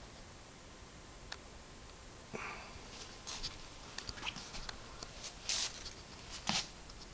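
Faint handling noise: scattered small clicks and a few short rustles over a steady hiss.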